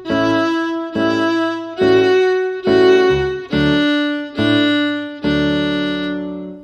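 Fiddle playing a simple beginner tune at slow practice speed: separate bowed notes about one a second, ending on a longer held note that stops near the end.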